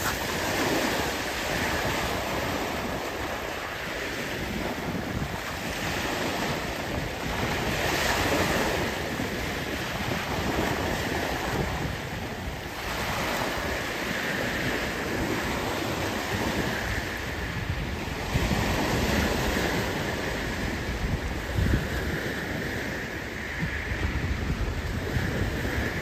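Small sea waves breaking and washing over a pebble beach, surging up every few seconds, with wind buffeting the microphone.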